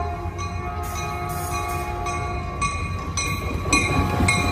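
Caltrain bi-level push-pull commuter train rolling past on the far track: a steady low rumble of wheels and cars, with faint steady tones above it.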